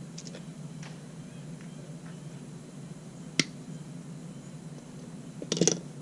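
Small clicks of hands working stranded wires into plastic butt connectors: faint ticks at first, one sharp click about halfway through and a quick cluster of clicks near the end, over a steady low hum.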